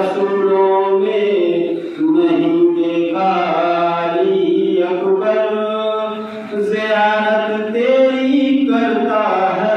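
A solo male voice chanting a melodic devotional recitation into a microphone, with long held notes in phrases broken by short breaths.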